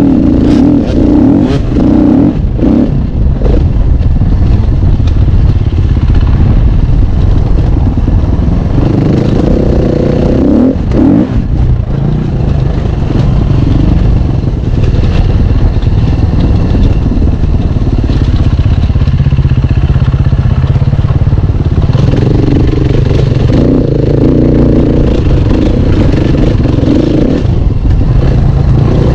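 Enduro motorcycle engine heard from the saddle, revving up and easing off again and again while riding a dirt trail. The bike clatters over bumps a few times, near the start and again about a third of the way in.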